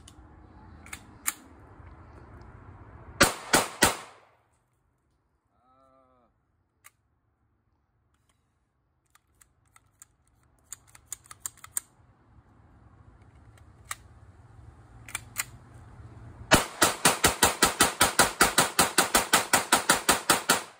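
FN Five-seveN pistol (5.7×28mm) firing from a 30-round ProMag extended magazine. Three quick shots come about three seconds in, then, after a pause with a few faint clicks, a fast string of about two dozen shots at roughly six a second fills the last four seconds.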